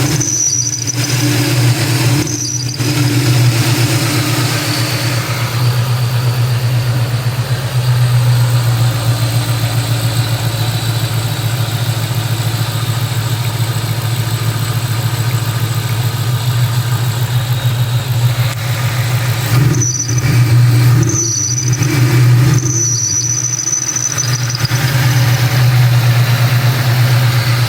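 2003 Mustang SVT Cobra's supercharged V8 idling steadily, with a brief high-pitched squeal that comes and goes: twice near the start and several times in the last third. The squeal is the sign of a bad belt tensioner.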